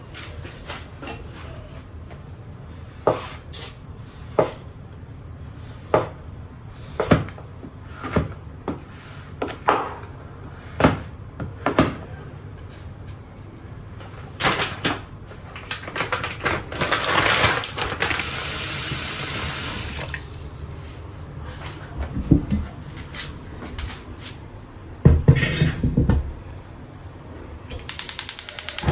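A kitchen knife chopping a bar of chocolate on a cutting board, in separate sharp chops. A stretch of running water comes in the middle, and a few knocks of kitchenware follow it. A steady buzzing starts near the end.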